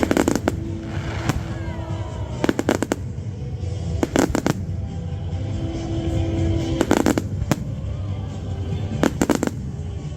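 Aerial fireworks bursting in about six quick clusters of sharp bangs, one every second or two, over show music with a heavy bass.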